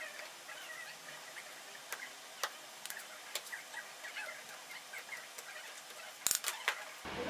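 Wood chisel paring a small notch in a thin wood strip by hand: scattered sharp clicks as the edge bites and chips away wood, with a quick cluster of louder clicks near the end.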